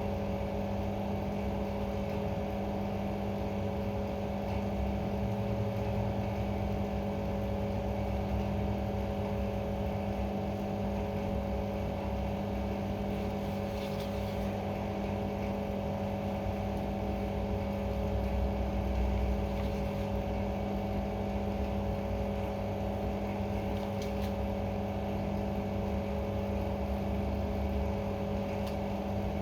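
A steady machine hum: several constant tones over a low rumble, with a couple of faint clicks.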